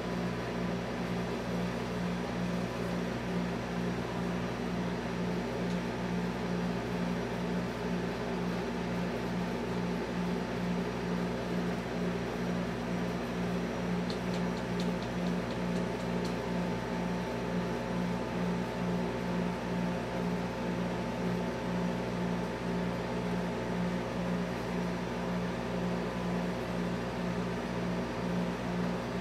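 Steady low mechanical hum of a running motor with a regular throb, and a brief run of faint light ticks about halfway through.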